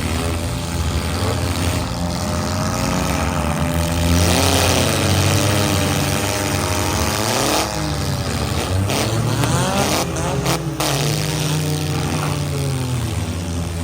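Several demolition derby cars' engines running and revving at once, their pitches rising and falling. A few sharp knocks come about ten seconds in.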